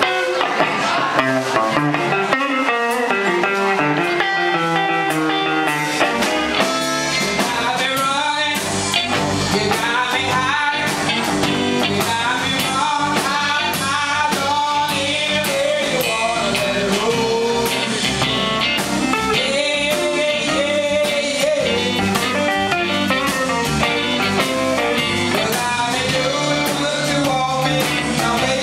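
Live blues-rock band playing, with electric guitars, bass guitar and drums, and a woman singing lead. The low end fills in about six seconds in.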